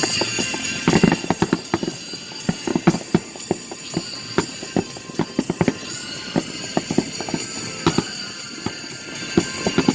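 Fireworks bursting and crackling, many sharp irregular bangs a second, over background music.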